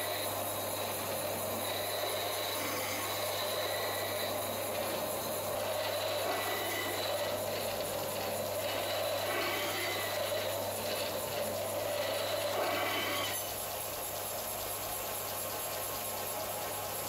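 Belt grinder running with the steel head of a pickaxe pressed against its abrasive belt: a steady motor hum under a continuous grinding rasp of metal on the belt. About thirteen seconds in the grinding drops away as the steel is lifted off, leaving the grinder running on its own.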